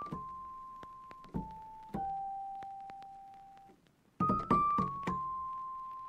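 Background piano music: a slow melody of single notes, each ringing out and fading. A quick run of notes comes about four seconds in.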